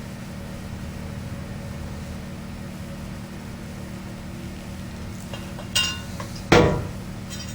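Small electric motor of a 1950s Fasco exhaust fan running with a steady hum, its bearings so dry that it is still screaming for oil. Near the end there is a short metallic clink, then a louder sharp knock.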